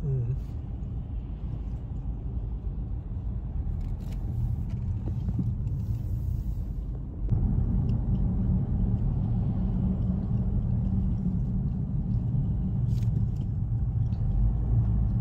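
Steady low rumble of a moving car heard from inside the cabin: engine and road noise while driving. It steps up abruptly and gets louder about seven seconds in.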